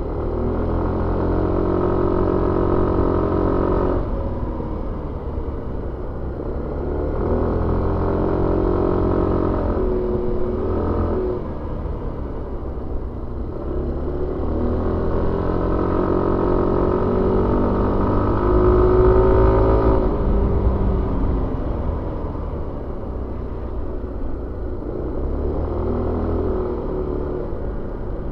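Suzuki Avenis 125 scooter's single-cylinder four-stroke engine running under way, heard on board. The engine pitch rises and falls four times as the throttle is opened and eased off. The longest and loudest pull comes in the middle.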